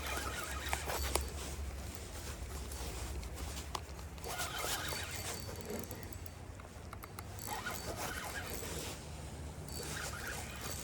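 A fishing reel being cranked in several short bouts, its gears giving a zipper-like whirr, as a hooked catfish is reeled in from far out. A few small clicks come near the start, over a steady low rumble.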